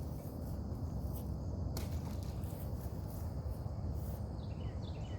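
Outdoor ambience: insects buzzing in a high, pulsing pattern over a steady low rumble, with a run of short high chirps starting near the end.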